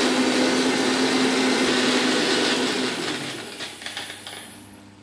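Electric mixer grinder running steadily as it grinds coriander leaves and green chillies into a paste. It is switched off about three seconds in and winds down to a stop.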